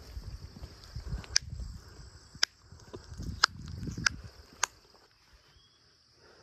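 Steady high chirring of insects, with low rumbling and five sharp clicks about a second apart; the rumbling and clicks stop about five seconds in.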